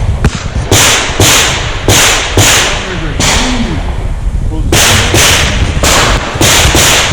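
Revolver shots from a Chiappa Rhino 40DS firing .38 Special in quick strings: a rapid run of sharp reports, a pause of under two seconds near the middle, then another rapid run.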